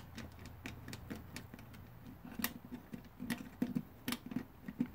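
Irregular small metallic clicks and taps of a tool being worked inside a toolbox lock's keyhole, feeling for pins; the clicks grow louder and more frequent about halfway through.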